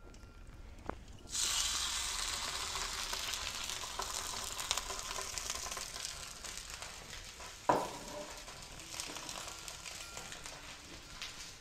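A salmon fillet laid skin-side down into a hot frying pan over an open wood fire starts a sudden loud sizzle about a second in, which slowly dies down as it fries. A single sharp knock sounds about two-thirds of the way through.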